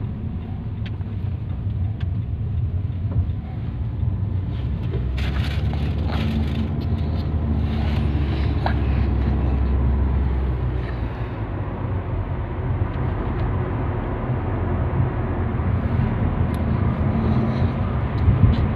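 Road noise inside a moving car's cabin: a steady low rumble of the tyres and engine, swelling a little about five seconds in, with a few light clicks and knocks.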